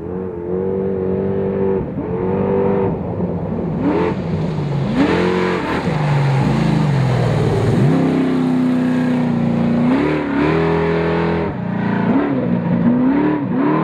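Off-road race truck engines revving hard as the trucks accelerate past, the pitch climbing and dropping again and again through gear changes. A long held high-rev pull comes about two-thirds of the way through.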